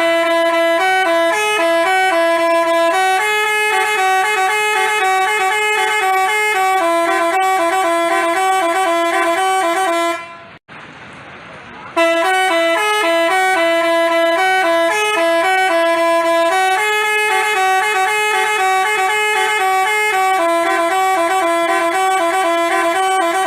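Basuri telolet multi-tone bus horn playing a fast tune of short stepped notes. It fades out about ten seconds in and, after a brief pause, starts the same tune again.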